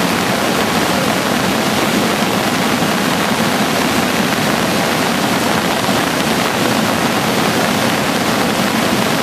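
Muddy floodwater rushing and churning in a river in spate: a loud, steady, unbroken noise of fast-moving water.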